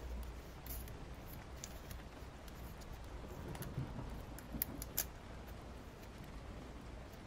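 Sparse, irregular light clicks and taps from pens and book pages being handled during annotating, over a steady low hum. The two sharpest clicks come about four and a half and five seconds in.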